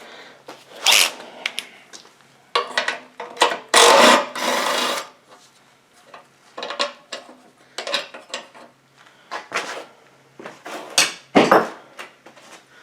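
Hand tools and small metal engine parts clinking, scraping and rattling in irregular bursts as a small Briggs & Stratton mower engine is unbolted and taken apart.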